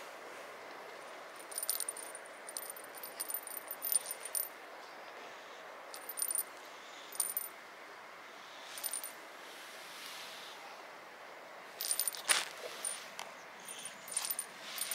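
Light metallic jingling and rattling in short, irregular clusters, with a high ringing in each burst, over a steady background hiss.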